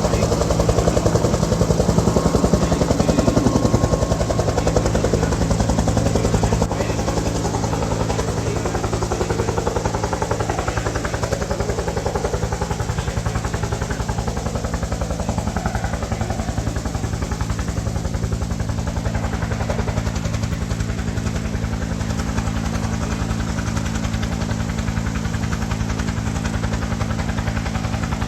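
An engine running steadily at constant speed, with a fast, even beat. It drops a little in level about seven seconds in.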